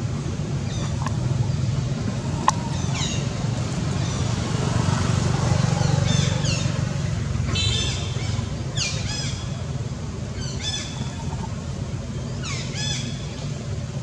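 A low, steady motor hum that swells in the middle and then eases off, with short, high, falling calls repeating every second or two from about three seconds in.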